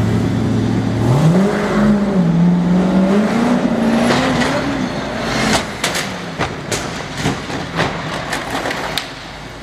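A car engine idles, then revs up and accelerates a little after a second in. From about five seconds in comes a run of sharp crashes and clattering strikes as a car flips over and lands on its roof.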